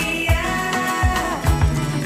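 Music with a steady beat and a bass line.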